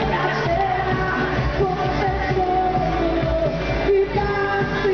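Live pop song over a concert PA: a singer holding long, wavering notes over a full band backing.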